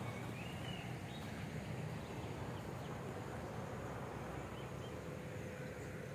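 Outdoor ambience: a steady, even hiss with a low rumble underneath, and a faint bird chirp about half a second in.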